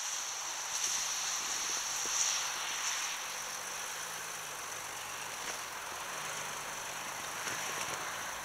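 Audi A6 Allroad's 3.0 TDI V6 diesel pulling slowly through deep snow: a faint low engine note under a steady high hiss.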